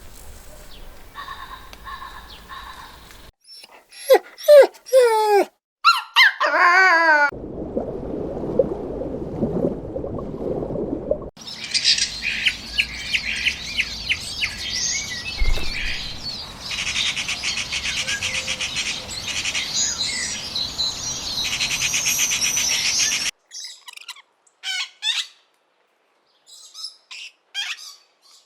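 A run of separate animal-call clips, mostly bird calls, changing abruptly. Loud gliding calls come a few seconds in, then a lower, rougher sound for about four seconds. After that comes about twelve seconds of dense, high-pitched chirping, and a few short scattered calls near the end.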